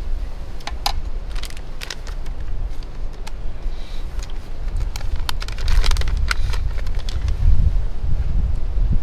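Light clicks and a brief rattling clatter about six seconds in, from small camp gear being handled, over a steady low rumble.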